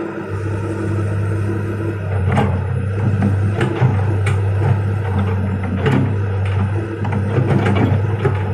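Komatsu PC200 excavator's diesel engine running steadily under work, with several sharp metallic clanks spread through it.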